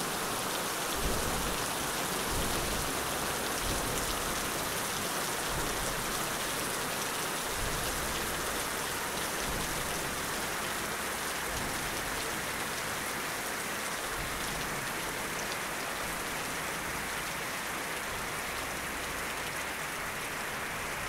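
A steady, even hiss of noise that sounds much like rain falling, with no speech or tones in it.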